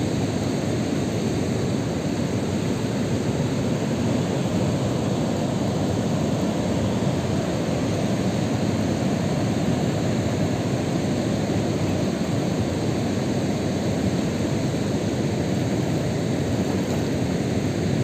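Steady rushing noise of water pouring over a dam's overflowing spillway.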